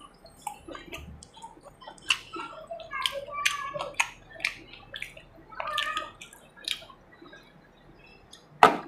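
Wet mouth sounds of someone eating chicken gizzard and liver up close: a run of short squelchy smacks and clicks, with one louder sharp click near the end.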